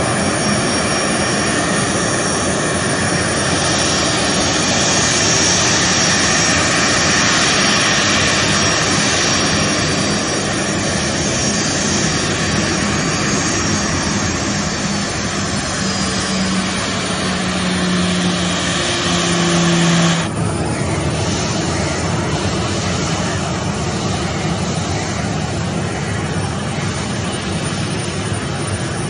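Boeing 737 jet engines running at taxi power: a steady rushing sound with a high whine on top. About two-thirds of the way in the high whine cuts off abruptly, leaving a duller, lower rush.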